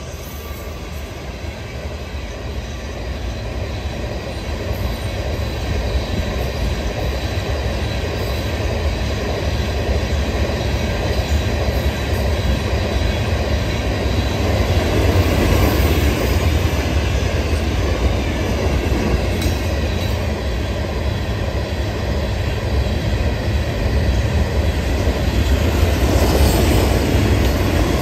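Freight cars of a Florida East Coast Railway train rolling past: a continuous rumble and clatter of steel wheels on rail that grows louder through the pass, with a faint high wheel squeal at times.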